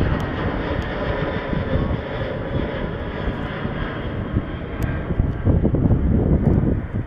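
Airbus A330-200's General Electric CF6-80E1 turbofan engines running at takeoff power: a loud, steady rush of jet noise with faint steady whining tones in it.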